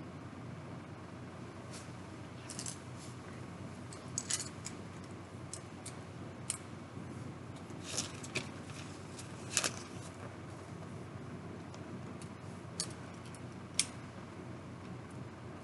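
Plastic Lego bricks clicking and rattling as they are handled: about a dozen short, sharp clicks at irregular intervals over a steady hiss of recording noise.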